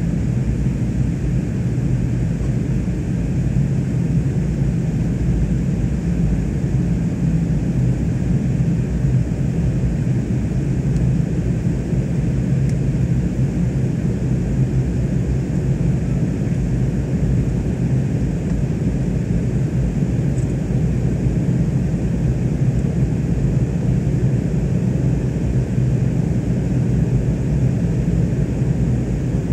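Steady low drone of a jet airliner's engines and rushing air, heard inside the passenger cabin while climbing out after takeoff.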